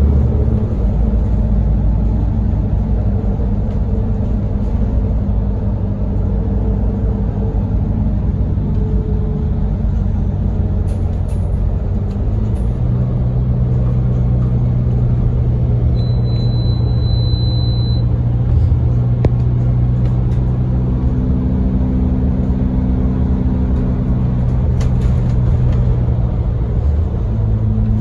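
Volvo B7RLE bus's rear-mounted six-cylinder diesel engine running under way, heard inside the passenger cabin along with road and tyre noise; the engine note changes a little before the middle. A high, steady beep sounds for about two seconds a little past the middle.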